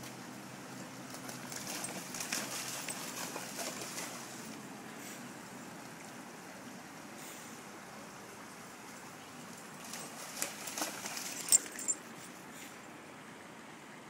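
Creek water running steadily over a small riffle. There is some rustling a couple of seconds in, and a few sharp clicks near the end.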